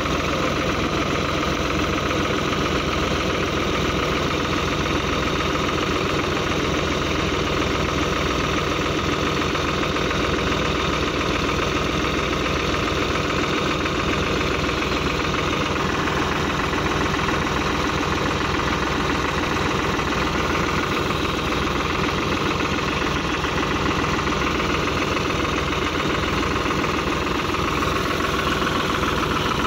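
New Holland tractor's diesel engine idling steadily, with an even, rapid chugging that does not change.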